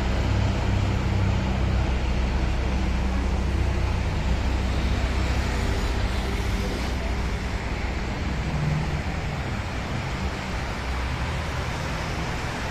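Road traffic on a wet multi-lane highway: a steady hiss of tyres on the rain-wet road over a low engine rumble that fades off about two-thirds of the way through.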